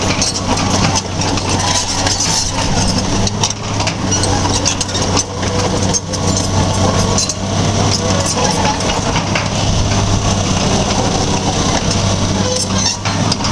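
Diesel engine of a Fiat-Hitachi FH200 crawler excavator running steadily at idle.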